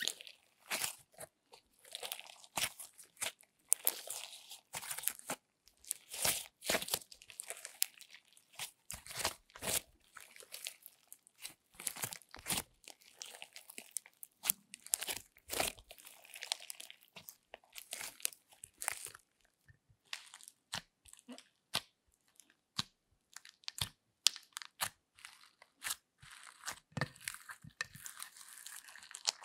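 Slime squeezed, kneaded and stretched by hand, giving a continuous run of irregular wet crackles and pops as air caught in the slime bursts.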